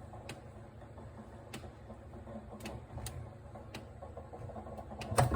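Samsung RT32 refrigerator making an abnormal noise: sharp ticks about once a second over a low hum, with a louder knock near the end.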